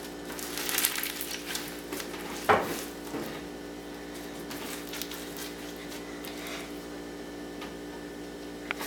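Floam slime, slime packed with styrofoam balls, being squeezed and crushed by hand, busiest in the first three seconds with one sharp pop about two and a half seconds in. After that only faint handling sounds over a steady background hum.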